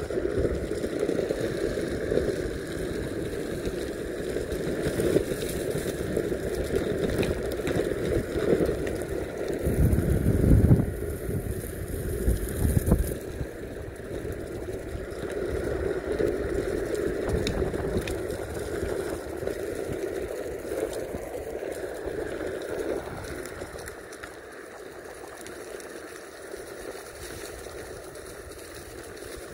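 Meepo Mini 2 electric skateboard with Cloud Wheels rolling over a dirt trail and dry leaves, a steady rumbling road noise. There is a louder low rumble from about ten to thirteen seconds in, and the noise eases somewhat near the end.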